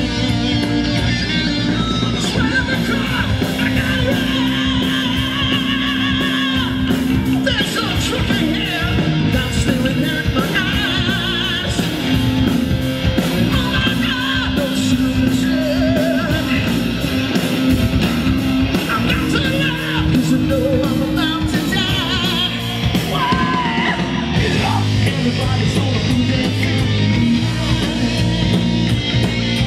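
Live hard rock band playing: distorted electric guitar through Marshall amps, bass guitar and drum kit, with a singer singing and yelling over it from a few seconds in.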